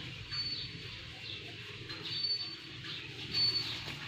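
Birds chirping: a few short, high whistled notes with quick falling chirps between them, over a steady low hum.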